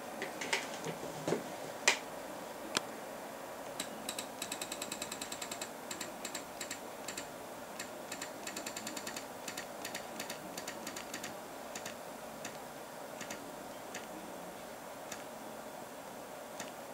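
A few scattered knocks, then an Arduino-driven stepper motor ticking through runs of steps, about eight ticks a second at first and then in shorter, sparser bursts, as it moves the microscope's focus.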